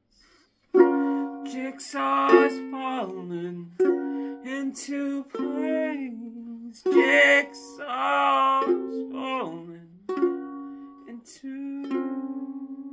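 Ukulele strummed and picked in chords, with a man singing long, drawn-out notes over it. The music starts after a brief pause. Near the end a chord is strummed rapidly.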